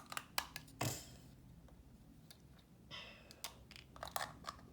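Lego plastic pieces clicking and knocking as the model is handled, a series of scattered small clicks. A soft breath about three seconds in.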